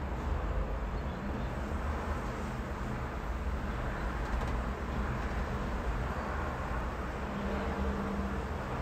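Severe wind gusting against the microphone as a heavy, uneven low rumble, over the steady noise of city traffic. A low, steady engine hum joins about seven seconds in.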